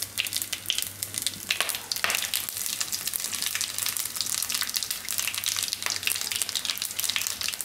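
Cumin seeds, mustard seeds and whole spices sizzling in hot ghee and oil for a tadka: a steady frying hiss full of quick crackling pops.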